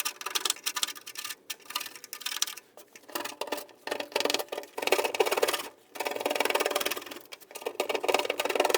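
Hand scraper rasping thick undercoating off a steel car chassis, in a series of scraping strokes of about a second each with short pauses between them.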